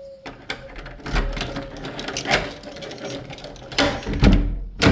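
Keys jangling and a key working in a door lock, with a run of metallic clicks and rattles and a sharp click near the end; the lock turns with ease now that the bent strike plate has been straightened.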